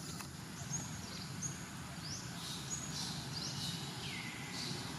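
Birds calling repeatedly in short high-pitched chirps, some rising and some falling in pitch, over a steady low background hum.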